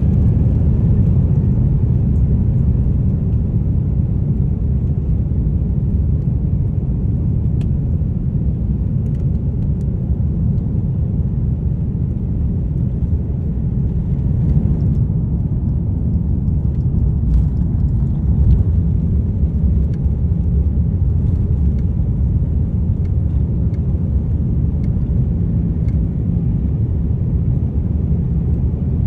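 Jet airliner's engines at takeoff thrust heard from inside the cabin over the wing: a loud, steady low rumble through the takeoff roll and lift-off. Faint scattered clicks and rattles come through over it in the middle of the stretch.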